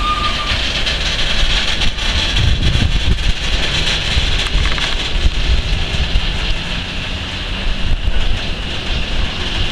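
Container freight train's loaded flat wagons rolling past close by: a steady rumble and clatter of steel wheels on the rails. A thin wheel squeal stops about half a second in.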